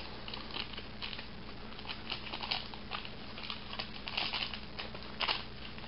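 Ramen seasoning packet crinkling as it is handled and worked at to open it, with small irregular crackles throughout.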